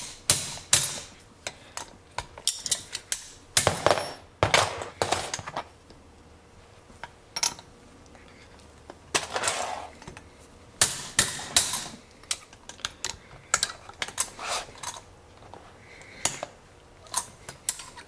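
A broken chisel being struck with a makeshift hammer against a Hermex disc detainer padlock: irregular sharp metal-on-metal knocks in clusters, sparser around the middle, as the chisel is driven in to force out the clip that holds the disc pack in.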